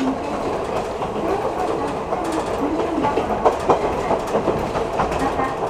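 Nagano Dentetsu 3500 series electric train running between stations, heard from inside the car: a steady rumble of wheels on rail with clicks from the rail joints, and a couple of louder clacks about three and a half seconds in.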